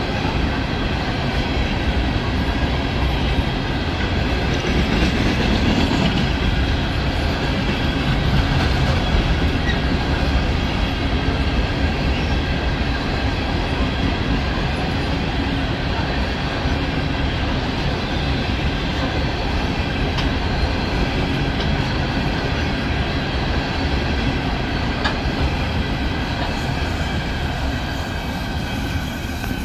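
CSX coal train's open-top coal cars rolling past steadily: a continuous rumble of steel wheels on rail with clickety-clack, over faint steady high tones from the wheels. The sound eases slightly near the end as the last cars pass.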